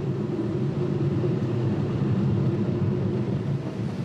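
Mariazellerbahn class 1099 electric locomotive running with its train on the narrow-gauge track as it comes out of a tunnel: a steady low rumble of motors and wheels.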